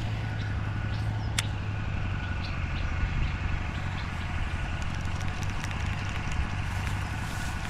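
Steady low mechanical hum, like an idling engine or motor, with a few sharp clicks in the first second and a half.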